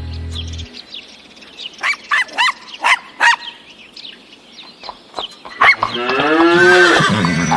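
A cow mooing once, a long drawn call near the end, after a few short high chirps about two seconds in.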